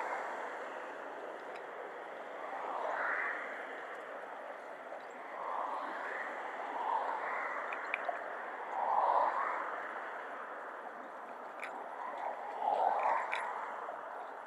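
Water lapping and splashing in irregular swells every three to four seconds, like small waves washing in.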